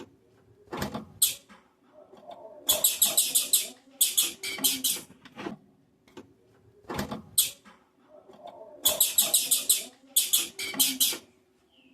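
Female blue-black grassquit (tiziu) calling in quick bursts of rapid, very high chip notes, about six bursts in all, with a few sharp taps between them.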